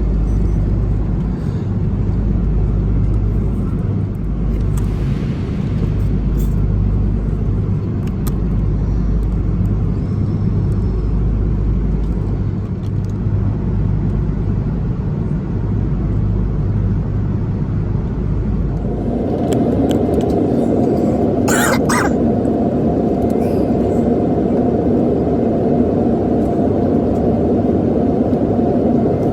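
Airbus A330 cabin noise: a steady deep rumble from the jet engines and airflow. About 19 seconds in the deep rumble falls away and a louder, higher roar takes over, with a few clicks soon after.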